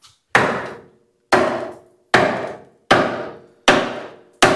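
Hammer blows on a rusted steel truck spring to knock it loose: six sharp metallic strikes about one every 0.8 s, each ringing briefly.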